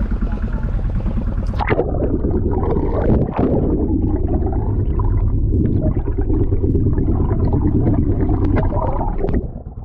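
A splash as the microphone goes under the sea surface, then a muffled underwater rumble and gurgling with the boat's engine thudding in a steady rhythm; the sharper sounds are cut off while under water, and it comes back up near the end.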